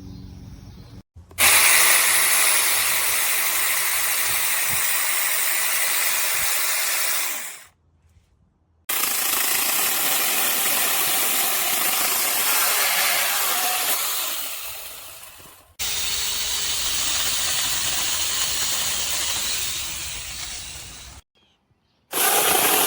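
Cordless electric mini chainsaw running at full speed in four separate stretches, each starting abruptly; two of them fade out gradually.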